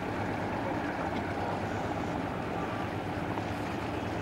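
Steady drone of a sightseeing boat's engine, heard from on board while the boat is under way.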